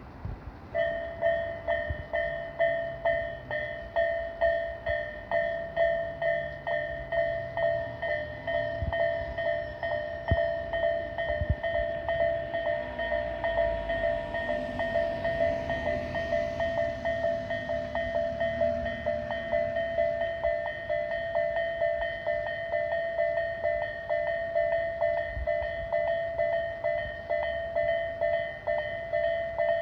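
Japanese railway level-crossing warning bell starting about a second in and ringing on in a steady, even repeating ding.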